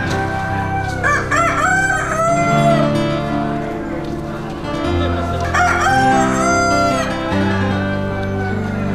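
A rooster crows twice, about a second in and again about five and a half seconds in, each crow a quick wavering rise and then a long held note. Guitar music plays steadily underneath.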